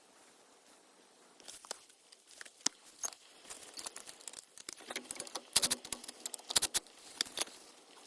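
Irregular clicks, taps and rustling of things being handled, getting busier about five seconds in and dying away near the end.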